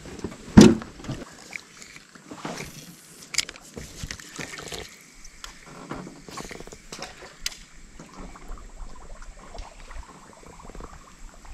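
A sharp, loud knock about half a second in as a caught crappie goes into the cooler in a jon boat, followed by scattered quieter knocks and handling sounds in the boat over faint water sounds.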